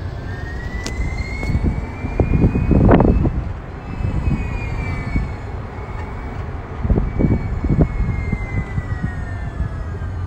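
Whine from the drive of an open-sided shuttle cart as it rides along a road. The whine climbs in pitch over the first few seconds, holds, then slowly drops near the end. Under it runs a steady low wind-and-road rumble that swells loudest about three seconds in, and again around seven to eight seconds.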